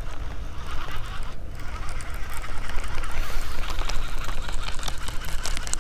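Baitcasting reel being wound in steadily, with a low, steady rumble of wind on the microphone.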